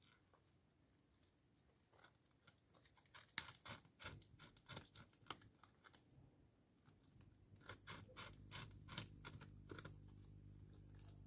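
North American beaver gnawing wood from a tree trunk with its incisors: quick, sharp crunching snaps in two spells, one about three to five seconds in and another from about seven and a half to ten seconds. A low steady hum comes in under it about eight seconds in.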